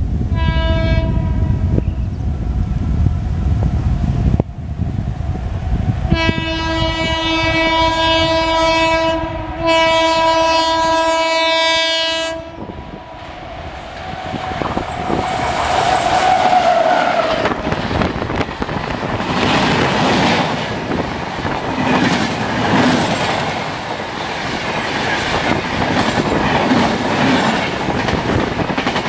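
Indian Railways WAP-7 electric locomotive's horn: a shorter blast about a second in, then a long blast about six seconds in with a brief break in the middle. From about fourteen seconds on, a train passes close by at speed, with the rumble and clickety-clack of its coaches on the rails.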